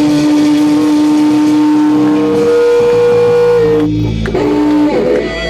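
Punk rock recording: electric guitar holding long sustained notes, one steady note giving way to a higher one about halfway through, as the song winds down.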